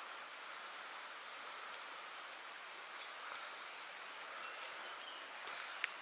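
Faint outdoor nature ambience: a steady soft hiss of insects and surroundings, with a few small high ticks about halfway through.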